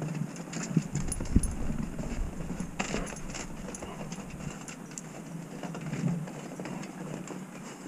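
Knocks, clicks and rustles of a golden retriever moving with a harness-mounted GoPro: paw steps and the camera mount bumping and clinking as the dog clambers over the playground equipment. The clicks and thumps come thick for the first three seconds or so, then thin out.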